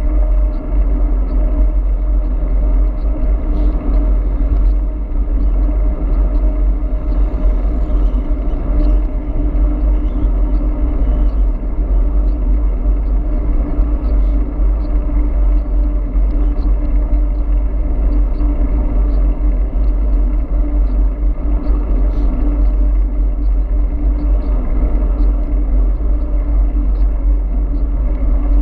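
Wind rushing over the microphone of a handlebar camera on a moving e-bike: a loud, steady rumble, with a steady hum running beneath it.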